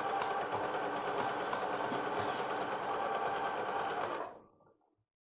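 Bernette b38 computerized sewing machine stitching at a steady speed through lace fabric, stopping just past four seconds in.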